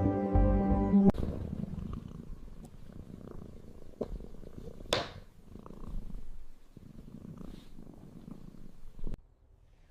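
Domestic cat purring, a low rough pulsing rumble, with a single sharp click about halfway through; it stops abruptly near the end.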